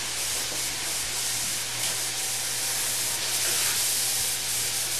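Bite-sized chicken pieces sautéing in melted butter in a frying pan, making a steady frying sizzle.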